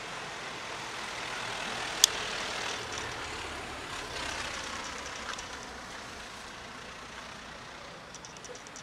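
Street traffic noise: a motor vehicle passing, swelling over the first few seconds and slowly fading, with one sharp click about two seconds in.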